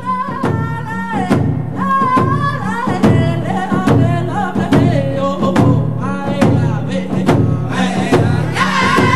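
Background music: a voice singing long, wavering notes over a steady beat and a pulsing bass line.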